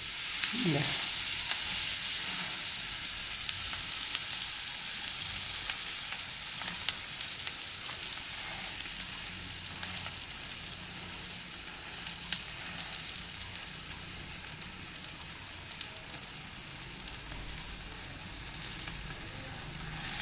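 Butter sizzling under a stuffed garlic bread sandwich on a hot tawa griddle: a steady frying hiss with scattered small crackles. It is loudest a second or two in, just after the bread has been turned, then eases a little.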